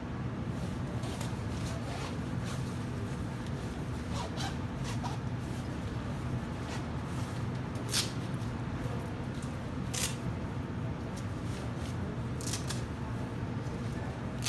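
Rustling and crinkling of a PVC rain suit and gloves being handled and pulled on, with a few sharper crinkles, over a steady low hum.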